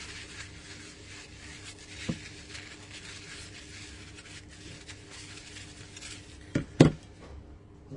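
Light rubbing and scraping of hands cleaning a water-damaged phone motherboard on the bench, with a small click about two seconds in and two sharp knocks near the end.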